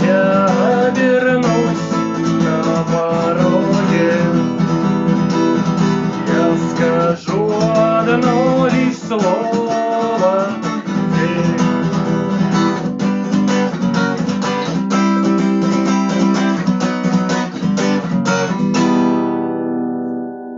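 Music: an acoustic guitar strummed steadily, with a gliding melody line above the chords. A final chord is left ringing and fades out near the end.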